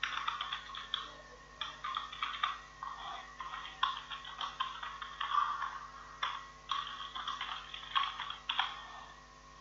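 Computer keyboard being typed on: quick, irregular runs of key clicks with short pauses between them, as an account number and a name are entered.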